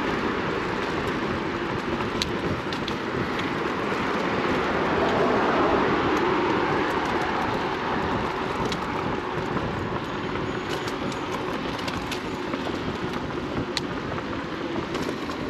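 Steady rush of wind over the microphone and road noise from a moving Inmotion RS electric scooter. It swells a little about a third of the way in, with a few faint ticks scattered through it.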